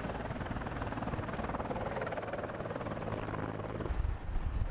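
Mi-8 helicopter running steadily, rotor chop and turbine noise heard from a distance. About four seconds in the sound changes to a deeper, louder rumble with a few thumps.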